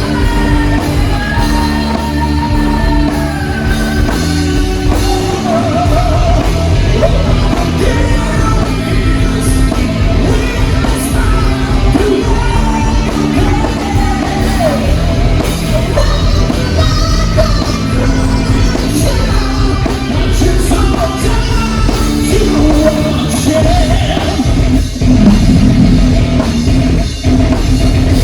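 Rock music with a singer's voice over guitars and bass, with sharp drum hits coming in near the end.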